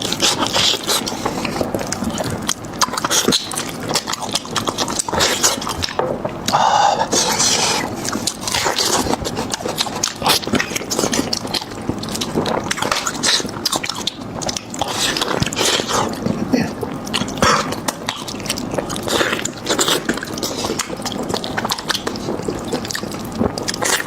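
Wet chewing, sucking and lip-smacking of someone eating beef trotter: a dense, uneven run of small smacks and clicks.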